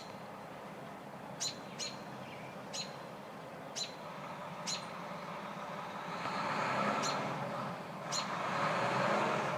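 Short, sharp high bird chirps, one every second or so. From about six seconds in, the rising rumble of a passing truck swells up and becomes the loudest sound.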